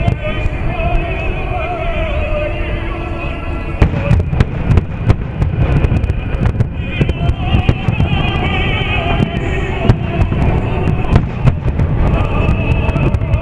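Fireworks bursting over a low continuous rumble, with many sharp bangs and cracks from about four seconds in. Music with a wavering, vibrato singing voice plays loudly alongside.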